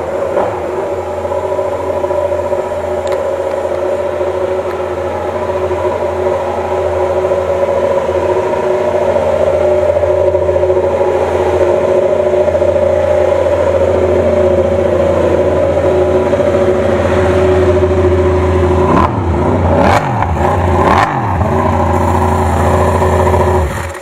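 Yamaha YZR-M1 MotoGP bike's crossplane inline-four engine idling steadily on its stands, given a few quick throttle blips near the end and then switched off.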